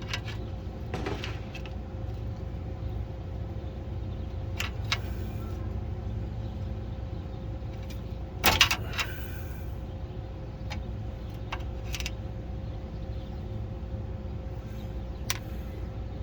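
Chevrolet 305 small-block V8 running with a steady low hum and a thin steady whine, broken by irregular sharp ticks and clicks, loudest in a brief cluster about halfway through. The ticking is the noise the owner suspects comes from a failing torque converter or a cracked flexplate.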